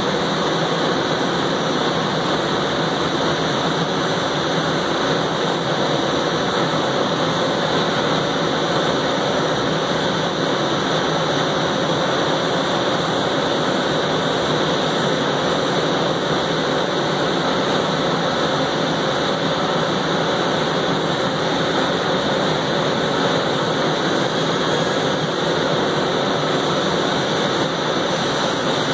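A 2000 Miyano LM-21 four-spindle CNC turning center running with its spindles spinning, a steady whir that does not change.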